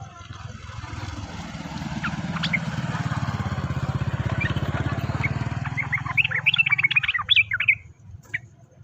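Small bird chirping, a couple of single notes early, then a quick run of high chirps near the end, the loudest part. Under it a vehicle engine rumbles, swelling and fading away.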